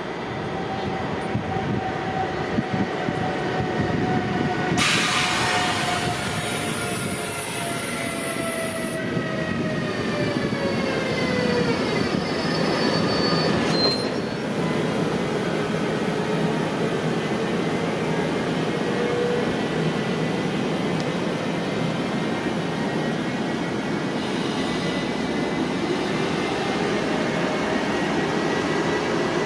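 Train passing on the line, with a continuous rumble of wheels on rail. Tones from its machinery fall in pitch as it goes by about twelve seconds in. A brief high hiss sounds from about five to nine seconds in.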